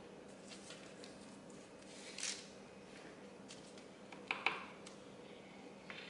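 Faint scraping and rustling of a kitchen knife cutting through rolled pastry dough on parchment paper over a metal baking sheet, with a brief hiss about two seconds in and a sharp tap about four and a half seconds in.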